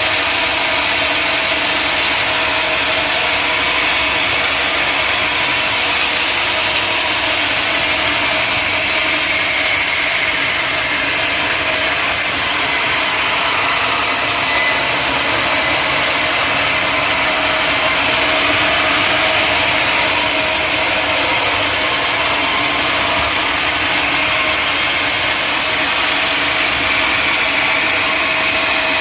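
Sawmill saw running and cutting through acacia wood, a steady, continuous machine drone with no pauses.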